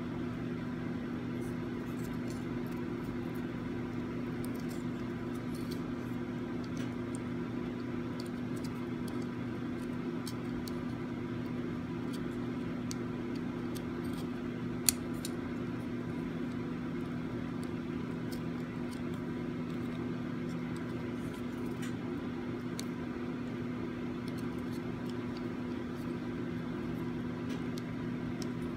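Small plastic clicks and taps of a dash camera's housing, battery and wires being handled and fitted back together, with one sharper click about fifteen seconds in, over a steady low hum in the room.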